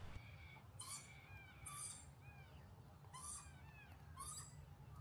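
Faint bird calls: a series of short, arching notes, about one a second.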